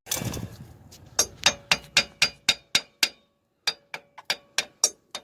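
A brief metallic clatter, then runs of sharp metal-on-metal taps, about four a second, each with a short ringing note. The taps come in two runs with a short pause between them, as if a hammer is tapping a part of a brake assembly into place.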